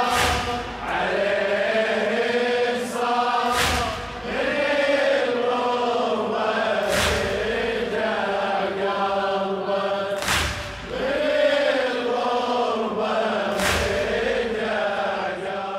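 Men's voices chanting a Shia mourning lament (latmiya) together in long, slow notes, with a loud unison thump about every three and a half seconds from the mourners beating their chests in time.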